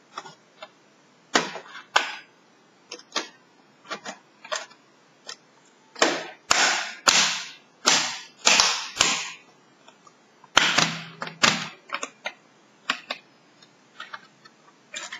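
Sharp plastic clicks and snaps from a Lenovo Y450 laptop keyboard being pressed down along its top edge. There are about twenty in an irregular run, with a cluster of louder, longer snaps in the middle.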